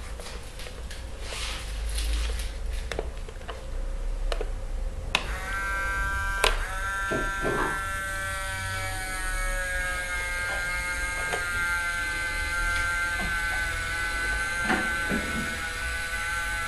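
Small electric winch motor in a model raft lowering its square sail: a steady whine that starts about five seconds in, dropping a little in pitch at first and then holding, with a few light clicks.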